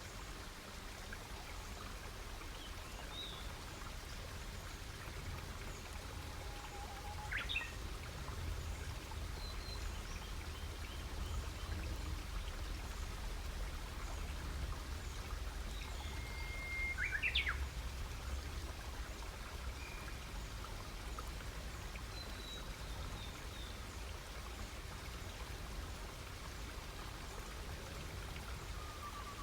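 Forest birds calling now and then, with two sharp chirps about seven and seventeen seconds in, over a steady low rumble and hiss.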